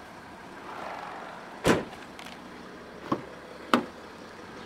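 Three sharp clunks of the BMW X5's doors being handled: a loud one about a second and a half in, then two lighter ones about half a second apart near three seconds in. A faint whirr comes just before the first.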